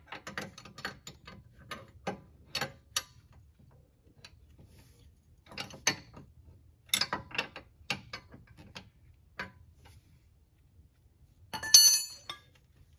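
A 24 mm wrench tightening the jam nut on a heim-joint sway bar link, clicking in short runs of strokes with pauses between. Near the end comes a loud, bright metallic clink that rings briefly.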